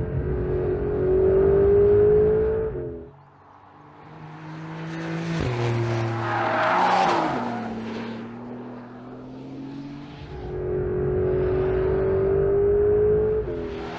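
2025 Porsche 911 Carrera GTS's 3.6-litre flat-six engine and exhaust under way, its note climbing steadily. About three seconds in the sound drops away, then the car approaches and passes about seven seconds in with its pitch falling. Near the end the engine note climbs steadily again.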